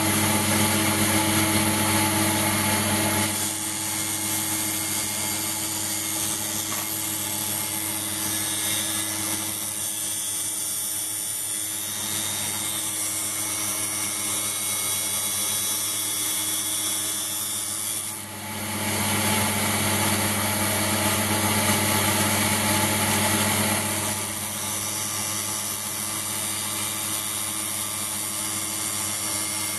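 775 DC hobby motor belt-driving a small tool-post grinder spindle, its wheel grinding induction-hardened steel: a steady motor hum and whine with grinding hiss. It is louder for the first few seconds and again for several seconds past the middle, just after a brief dip.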